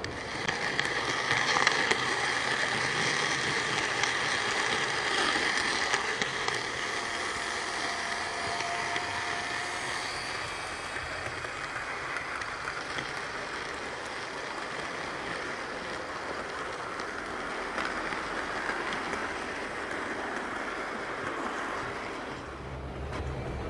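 OO gauge model train with Pullman coaches running past on the layout track: a steady rushing rattle of wheels on rail. It is loudest for the first several seconds and eases off after about ten seconds.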